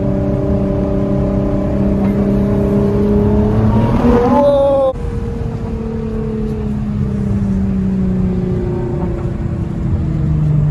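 Nissan GT-R's twin-turbo V6 heard from inside the cabin, its note rising under hard acceleration. About five seconds in the sound cuts off sharply and drops in pitch, then falls slowly as the car slows, before it starts to rise again near the end.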